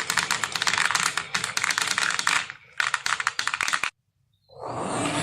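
Marbles clattering down a marble run, a fast dense stream of small clicks that breaks off briefly and then stops about four seconds in. Near the end a loud noisy rush swells up.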